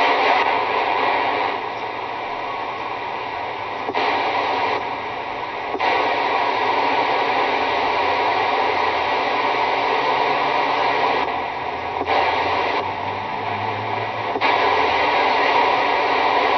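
CB radio static: steady hiss of band noise with no voice, dropping in level and coming back up several times.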